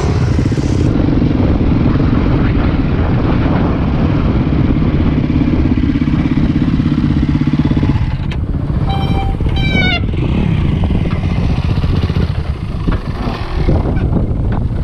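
Dirt bike engine running under load on single-track trail. About eight seconds in the engine eases off and a brief high squeal sounds, its pitch falling at the end; then the engine carries on at lower revs with some knocks and rattles.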